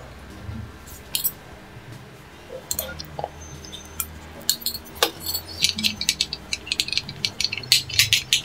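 Stainless steel idli plates and a small steel oil cup clinking and tapping against each other as the plates are greased. A few scattered clinks at first, then a quick run of many light clinks in the second half.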